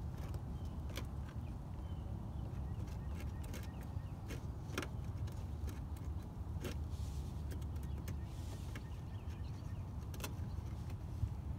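Scattered light clicks and crackles from a squeezed glue bottle and fiberglass cloth being pressed and handled, with a brief hiss about two thirds of the way in, over a steady low rumble.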